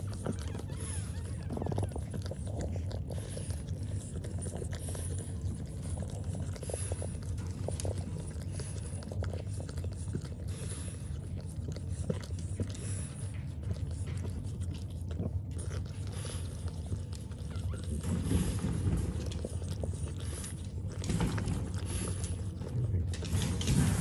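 Two-day-old French bulldog puppies suckling at their mother: a continuous run of small smacking clicks over a low hum, growing a little louder and busier over the last several seconds.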